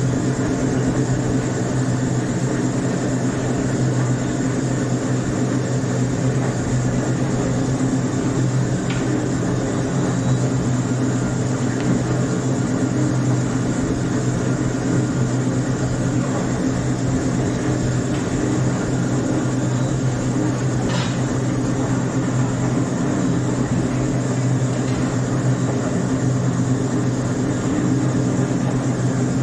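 A steady mechanical drone with a low hum and a hiss over it, unchanging throughout, with a few faint ticks.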